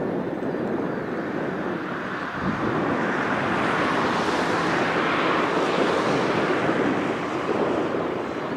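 Airbus A320 jet engines running as the airliner taxis past: a steady rushing whine that grows louder about three seconds in and eases slightly near the end.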